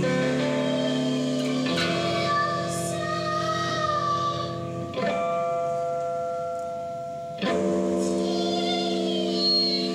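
Live experimental music: an electric guitar holds sustained chords, struck anew or changed three times, while a woman's voice wavers over them into a microphone.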